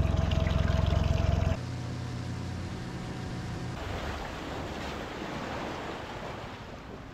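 An engine running hard and loud for about the first second and a half, then an abrupt change to a quieter, steady engine hum. Near the middle the hum gives way to a steady rushing noise.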